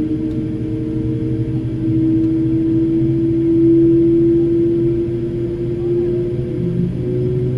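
Boeing airliner jet engine during start-up: a steady low drone with a held humming tone that swells in loudness about midway, then eases slightly.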